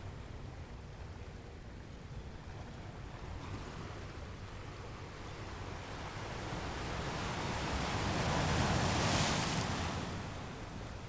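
Sea water washing against a boat, a steady wash with one surge that swells louder about eight to nine seconds in and then falls back.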